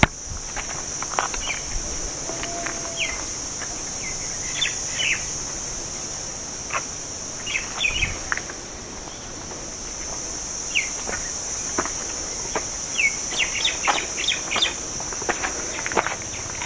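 A steady, high-pitched buzz of insects with short bird chirps scattered through it, busier near the end. There are a few scattered footsteps on stone steps.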